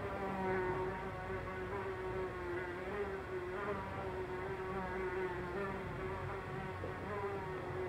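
Housefly buzzing in flight around a room, one continuous wing buzz whose pitch wavers slightly as it moves, over quiet room tone.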